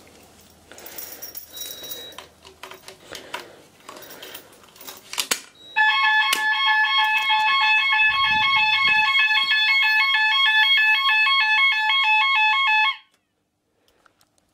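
Gent electronic fire alarm sounder on a conventional system, set off from a break-glass call point. It sounds a loud two-tone alarm, stepping between two pitches several times a second, for about seven seconds, then cuts off abruptly as it is silenced at the panel. Before it come handling and footstep noises and a sharp click.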